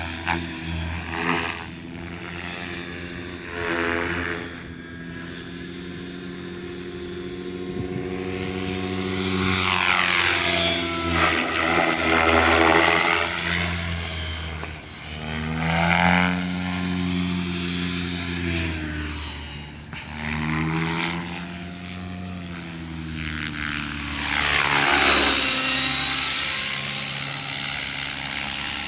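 Align T-Rex 600 radio-controlled helicopter in flight: the buzz of its rotor and drivetrain rises and falls in pitch as it manoeuvres. It swells loudest when it passes close, about twelve, sixteen and twenty-five seconds in.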